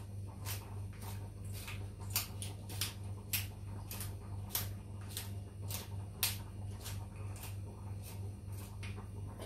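Hand pepper grinder being twisted to crack peppercorns, its mechanism clicking about three times a second, over a steady low hum.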